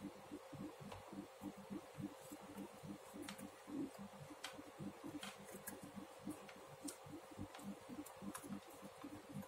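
Knitting needles ticking and clicking faintly and irregularly as stitches are worked in yarn, over a steady low hum.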